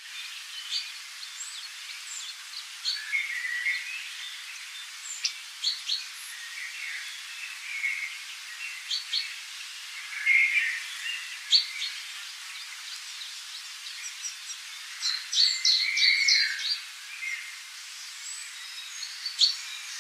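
Birds chirping and calling in many short, high notes scattered irregularly, over a steady faint hiss.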